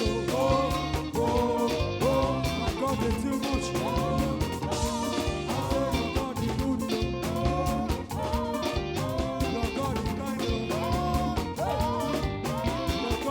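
Live praise-band music in an upbeat African gospel style, with a steady dance beat and a lead line that slides in pitch.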